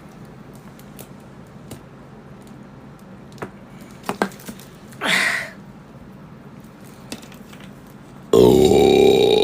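A few faint clicks and a brief breathy rush, then about eight seconds in a woman lets out a loud, long belch with a steady pitch.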